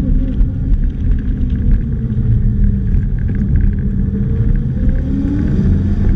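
Polaris Slingshot three-wheeler's engine running under way, with heavy low wind rumble on the microphone in the open cockpit. The engine pitch falls in the first second and climbs again from about four seconds in as it accelerates.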